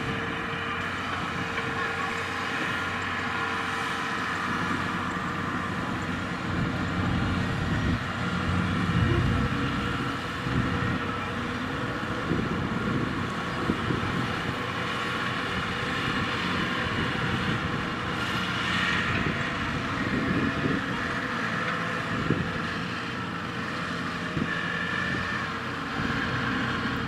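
Kubota combine harvester's diesel engine running steadily as the machine drives along on its tracks.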